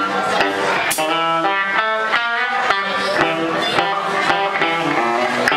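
Live blues band playing: electric guitar lead over bass and drums, with notes sliding up and down in pitch.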